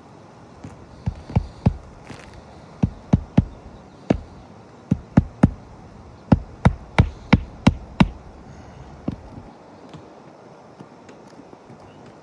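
Hammer driving roofing nails to refasten an asphalt shingle: sharp strikes in quick runs of about three a second, with short pauses between runs, stopping about nine seconds in.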